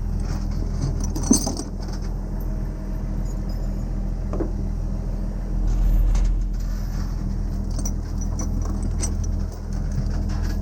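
A large engine idling steadily, swelling briefly about halfway through, with a few sharp metallic clinks and jingles over it.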